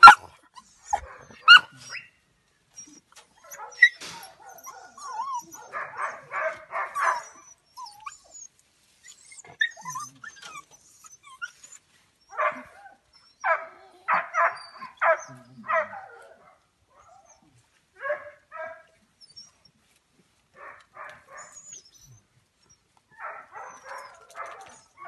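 Dogs barking in separate bursts of quick barks: a run about six seconds in, a longer series a few seconds later, and more short runs toward the end, with quieter stretches between.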